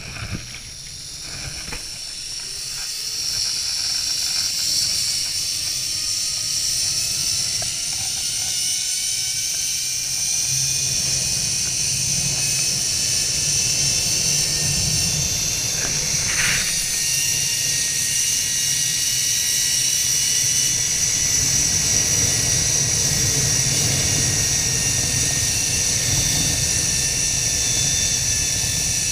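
Zip-line trolley pulleys running along the steel cable: a continuous whirring hiss with a whine that climbs in pitch over the first ten seconds or so as speed builds, then holds. Wind rumbles on the microphone underneath.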